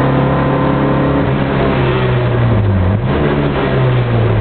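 Rally car engine running hard at high revs, heard from inside the cabin. About three seconds in, the revs dip briefly and climb again, then they begin to fall near the end.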